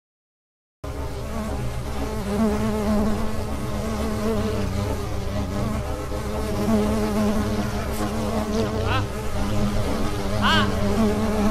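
Dense swarm-like buzzing, as of many flies, starting abruptly after about a second of silence and running loud and steady. Short wavering high cries rise out of it near the end.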